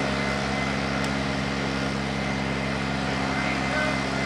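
Steady low mechanical hum made of several fixed tones, with a faint thin high tone above it and no change in level.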